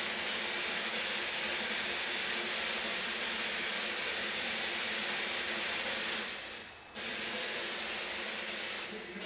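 Steady hiss of static, dipping out briefly about six and a half seconds in and again near the end.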